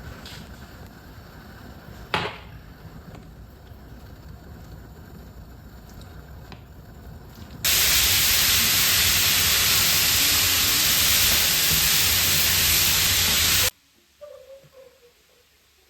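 A loud, even hiss that starts suddenly about eight seconds in and cuts off sharply about six seconds later. Before it there is only faint room noise and a single knock about two seconds in.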